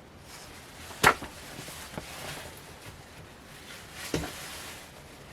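Sheet-music books being handled: soft paper rustling, with a sharp knock about a second in and lighter knocks near two and four seconds as books are set down or their covers tapped.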